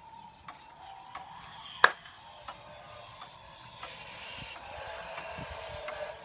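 Regular mechanical ticking, about one and a half sharp clicks a second, with one much louder click about two seconds in, over a faint steady tone.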